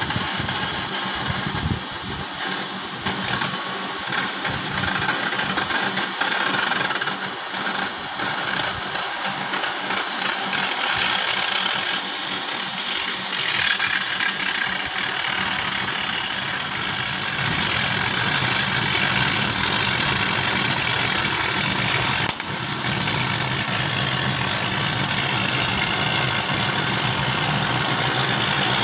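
CNC oxy-fuel flame-cutting torch cutting through 20 mm mild steel plate, giving a steady hiss. There is a brief dip with a click about 22 seconds in.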